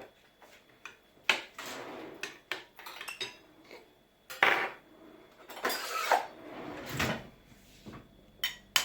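A spoon clinking and scraping against a bowl and dishes as sugar is spooned into the batter: a series of sharp knocks and clinks with a few short scraping stretches.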